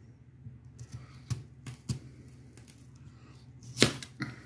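Serrated kitchen knife cutting through a white onion and knocking on a plastic cutting board: several irregular cuts, the loudest near the end.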